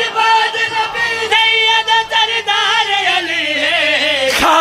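A man singing a line of a qasida, a devotional Urdu/Punjabi poem, in long held notes with a wavering pitch that slides down near the end.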